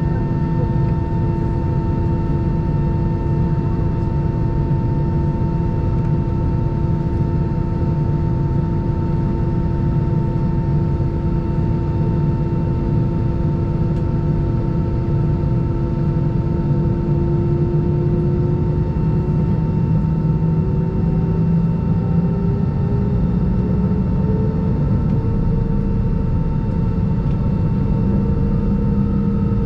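Airbus A320 cabin noise from a window seat over the wing: a steady low rumble with several steady whining tones from the aircraft's engines and systems. Some of the whines rise gently in pitch about two-thirds of the way through.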